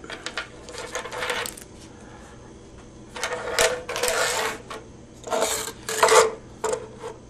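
Hands gathering plastic magnetic alarm contacts and their thin wires off a tabletop and setting an alarm panel circuit board down: several bursts of clattering and rustling with sharp clicks, the sharpest a little after the middle.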